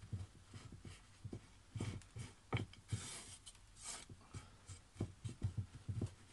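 Hands pressing and smoothing coarse granular bonsai soil in a shallow pot: gritty rubbing and scraping with irregular light crunches and taps.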